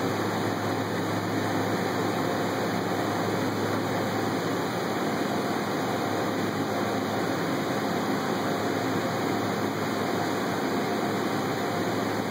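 Steady, unchanging hum and hiss of machine-shop background noise, with no distinct events.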